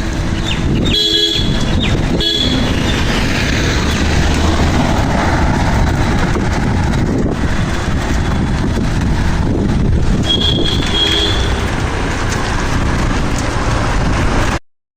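Steady rushing street and traffic noise, loud throughout, with brief vehicle horn toots about a second in, around two seconds in, and again around ten seconds in. The sound cuts off abruptly near the end.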